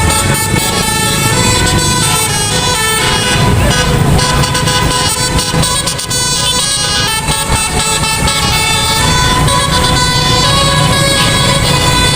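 Bus telolet horn, a multi-tone musical air horn, sounding loud held notes that shift in pitch every few seconds over the low rumble of the bus engine.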